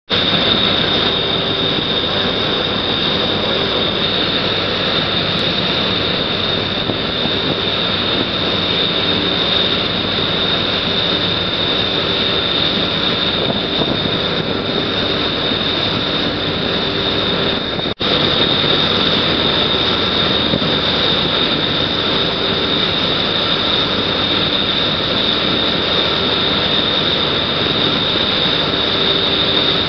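Heavy diesel machinery running steadily under load, a continuous drone with a high steady whine over it. It breaks off for an instant about eighteen seconds in.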